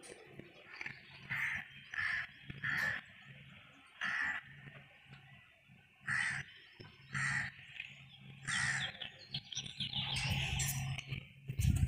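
Birds chirping outdoors: short calls repeated about once a second, running into a quicker string of chirps near the end, over a faint low hum.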